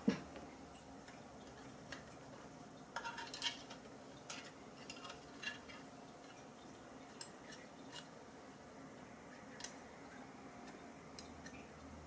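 Faint, scattered light clicks and taps of small hard parts being handled: a solid-state drive being taken out and worked on by hand during a laptop hard-disk swap. A few clicks come close together about three seconds in, then single ones every second or two.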